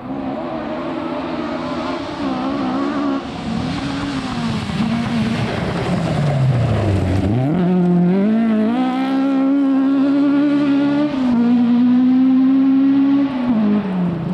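Rally car engine at full race pace: the engine note drops steeply to a low point about seven seconds in as the car slows, then climbs hard and holds high, with a brief dip around eleven seconds like a gear change, and falls away near the end.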